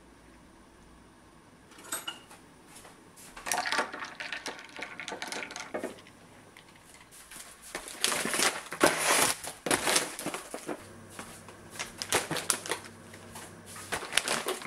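Kitchen handling sounds: a run of sharp clicks, rustles and crunches that starts about two seconds in and is busiest around eight to ten seconds in.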